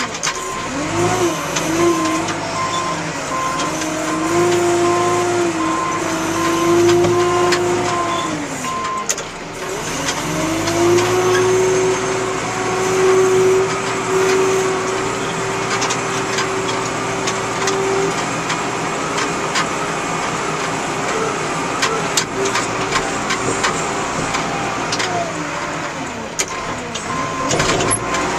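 John Deere 310E backhoe loader working: its diesel engine and hydraulics rev up and settle back several times, with a whine that rises, holds and falls under load. A reversing alarm beeps steadily for about the first eight seconds and again near the end, and there are scattered clanks in the second half.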